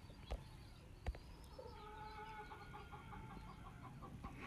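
Chickens clucking faintly in the background, a quick run of clucks starting about one and a half seconds in. Two soft knocks come in the first second or so.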